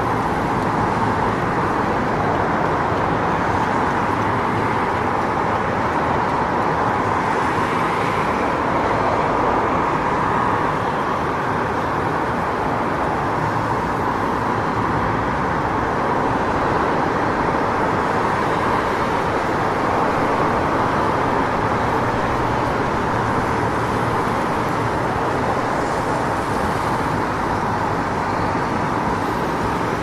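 City street traffic: a continuous, steady wash of road noise from passing cars and engines.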